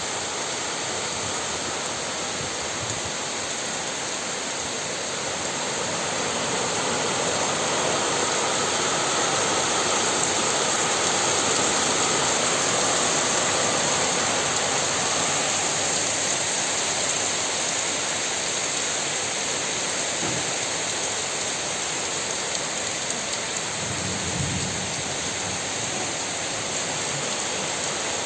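Heavy rain falling steadily, swelling louder for several seconds in the middle, with a brief low rumble near the end.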